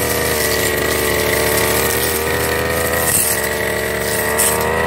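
Firman FGB389 backpack brush cutter running at high speed while cutting grass and weeds. Its pitch dips briefly a couple of times as the blade takes load in the thick growth.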